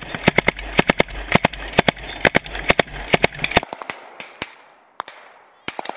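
Gunfire: many sharp shots in quick, uneven succession, about half a dozen a second. After about three and a half seconds they thin out to a few scattered shots.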